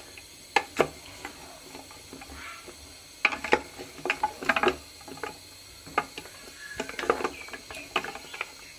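Spatula stirring a pressure cooker packed with goat trotters: irregular clacks and scrapes as the bones knock against the metal pot, bunched in quick runs with the strokes.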